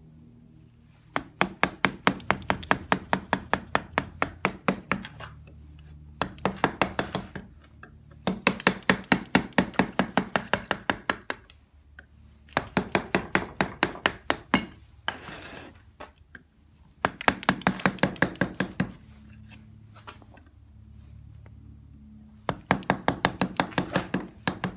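Rapid, light mallet taps on a carving gouge, about five or six strikes a second, in runs of one to four seconds separated by short pauses, as relief details of a cherub are cut.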